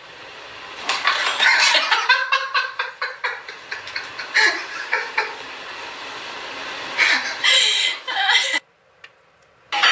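A person laughing off-camera in short, quick pulses, with a louder stretch about seven seconds in; the sound drops out about a second before the end.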